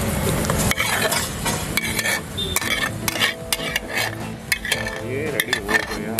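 Metal spatula scraping and tapping against a metal pan as sauced pasta is pushed out into an aluminium foil tray: a run of irregular scrapes and clinks.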